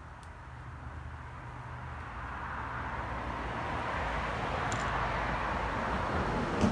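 Road traffic growing steadily louder over several seconds, like a vehicle approaching on a nearby road.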